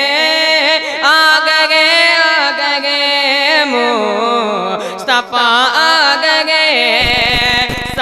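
A boy singing a naat solo into a microphone, drawing out long held notes with wavering, ornamented turns of melody. A low buzz comes in near the end.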